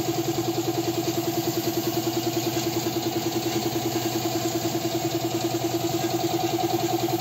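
Air compressor feeding a paint spray gun, running steadily with a fast, even pulsing beat.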